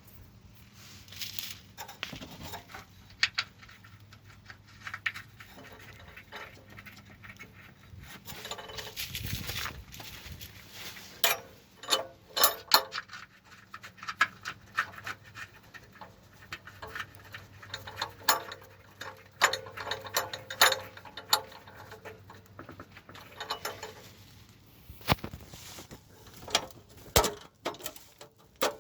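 Hand work on a car exhaust mounting: scattered, irregular metallic clinks, knocks and rattles of tools and parts being handled, some with a brief ring.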